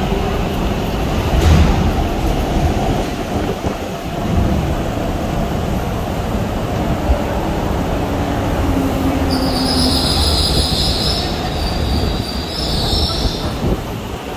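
MTR East Rail Line R-Train electric multiple unit running slowly along the platform: steady rail rumble with faint motor-inverter tones and a thump about a second and a half in. A high-pitched wheel or brake squeal rises from about nine seconds in and lasts roughly four seconds.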